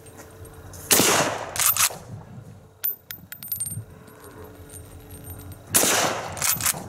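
Schmidt-Rubin Model 1889 rifle firing two shots about five seconds apart, each a sudden crack with a ringing tail and a second, shorter burst under a second after it. Light clicks come between the shots.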